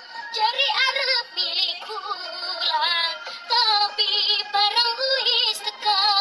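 Music: a song with a woman's voice singing, its held notes wavering in a strong vibrato.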